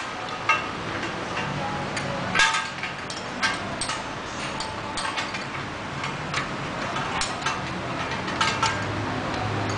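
Irregular metallic clicks and clinks of a wrench and metal parts being worked on, roughly one or two sharp ticks a second, some with a short ring, as a pedal is tightened onto its crank.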